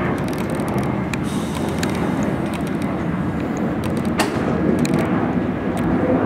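R32 subway train approaching on a curved elevated track, a steady rumble of wheels on rail with scattered clicks and ticks.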